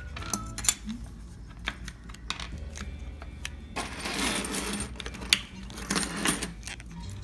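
Small hard plastic toys, a stamper and a roller stamp, clicking and knocking as they are handled on a wooden tabletop. In the second half there are a couple of short metallic rattles as a bunch of keys on a ring is moved.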